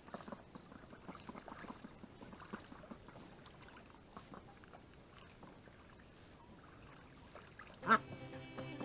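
Welsh Harlequin ducks bathing in a shallow tub of water: faint, irregular light splashing and dabbling, busiest in the first few seconds. Music starts near the end.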